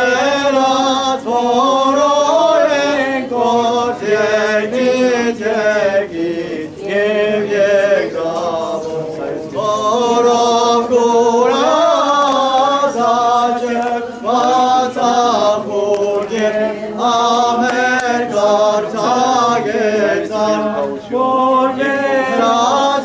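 Choir singing Armenian church chant, a slow melody of held, wavering notes that runs on with only brief breaths between phrases.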